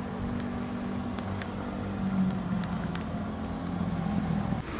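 An engine running steadily with a low hum that rises and shifts a little about two seconds in, with a few scattered sharp clicks and knocks.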